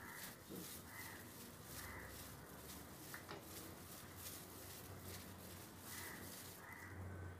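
A hand mixing flour and warm milk in a bowl: faint, rhythmic soft swishing and rubbing strokes, about two a second.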